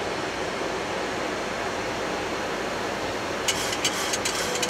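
Steady rush of airflow and air-conditioning noise in a Boeing 737-800 flight deck on approach. From about three and a half seconds in it is joined by a scatter of sharp ticks, raindrops striking the windscreen.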